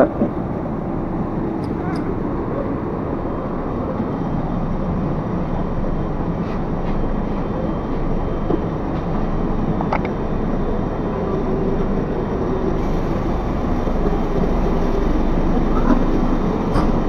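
City bus engine running steadily, heard from the doorway and inside the cabin as passengers board, with a few faint clicks and knocks; it grows slightly louder near the end.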